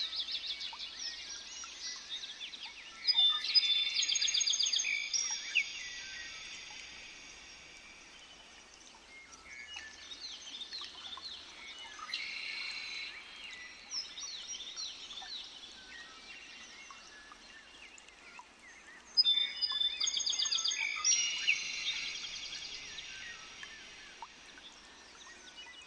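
Double-collared seedeater (coleiro) song: two loud phrases of rapid trills and clear held whistles, about three seconds in and again near twenty seconds in, with softer chirps and calls in between.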